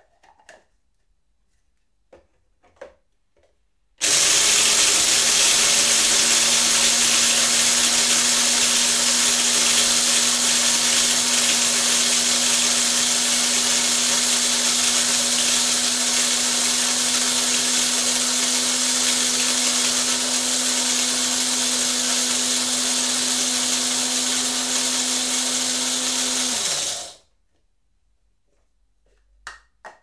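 Electric coffee grinder grinding beans: a few light clicks, then the motor switches on abruptly about four seconds in and runs with a steady whir and hum for over twenty seconds, the hum dropping in pitch as it switches off. Two faint clicks follow near the end.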